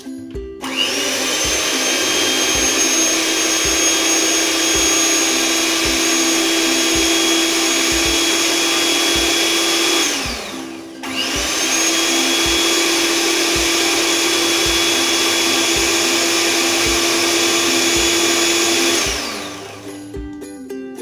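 Electric hand mixer with a single beater whipping chilled milk and cream in a tall plastic jar to raise a froth. It runs steadily with a high whine for about nine seconds, stops for about a second, then runs again for about eight seconds before switching off.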